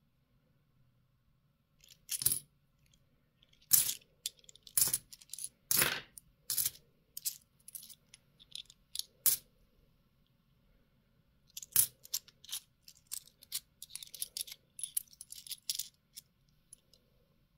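Two-euro coins clinking against one another as they are handled in the hand: a few separate sharp clinks with a bright ring, then a quicker flurry of small clinks near the end as a stack of coins is shuffled.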